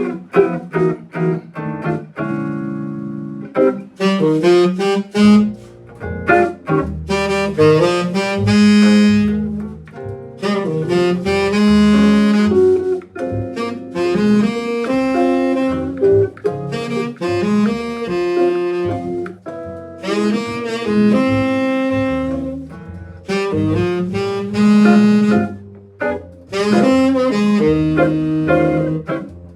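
A small band playing jazz, with a saxophone carrying the melody over a bass line, starting abruptly right at the beginning and running in phrases with short breaks between them.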